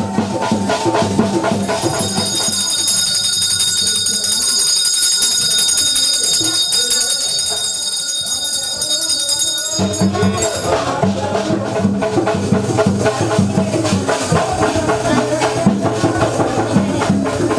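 Background music: sustained high ringing tones through the first half, then a steady drum beat from about ten seconds in.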